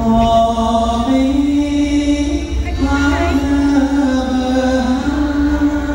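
A male singer sings long, held notes into a microphone over a live band's backing, with a steady bass pulse underneath.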